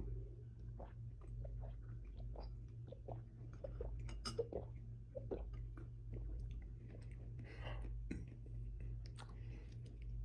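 Gulping and swallowing with small wet mouth clicks while drinking from a trimmed young coconut, over a steady low hum.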